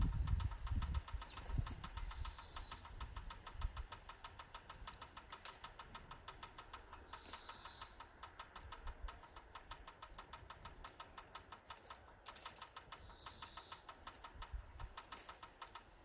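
Outdoor garden sound: a fast, even ticking runs throughout, and a small bird gives a short high call three times, about five seconds apart. Some low rumbling in the first second or two.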